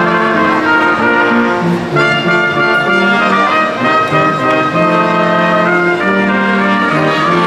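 Live brass ensemble of trumpet, trombone and tuba playing a slow chordal piece, with held notes that change into new chords every second or so.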